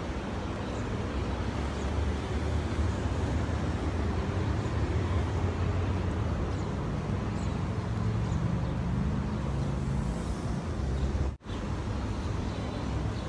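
Wind buffeting a phone's microphone: a steady, uneven low rumble with hiss above it. The sound cuts out for an instant near the end.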